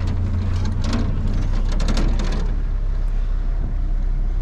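Vehicle engine running with a steady low drone, heard from inside the cab. A quick run of sharp clicks and rattles comes in the first couple of seconds.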